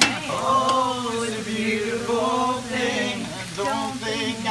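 A man singing into a handheld microphone, holding and bending long notes, with a sharp click at the start. A steady hiss runs underneath.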